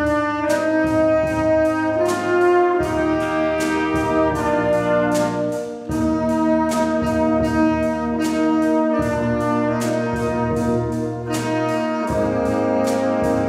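A brass band plays held, full chords over a steady percussion beat, the harmony changing every second or two.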